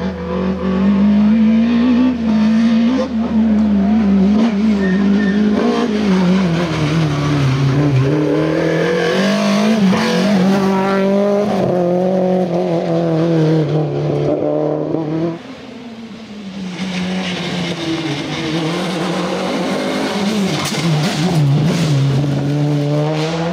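Rally car engines run hard at full throttle, their pitch rising and falling with gear changes and lifts through the corners. About 15 seconds in the sound drops away suddenly, then another car's engine climbs back in.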